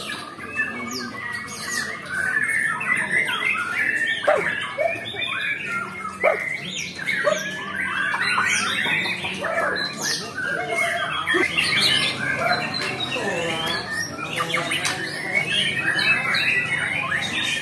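Many caged songbirds singing at once: a dense, overlapping mix of chirps, trills and whistled notes that goes on without a break.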